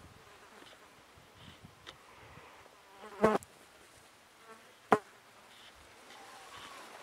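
A fly or similar insect buzzing, broken by two short, loud sounds: a brief pitched squeak about three seconds in and a sharp click about five seconds in.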